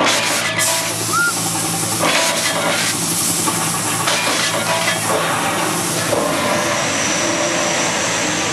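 Steady hissing rush of special-effects fire and smoke jets during a staged car-stunt sequence, over a low steady hum.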